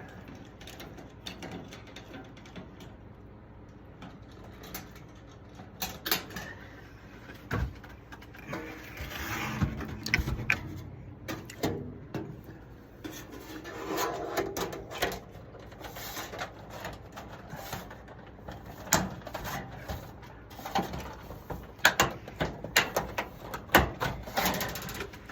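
Handling noise from putting a metal light fixture back together: scattered sharp clicks and knocks, with a couple of short stretches of scraping and rustling as the wiring is tucked in and parts are fitted back.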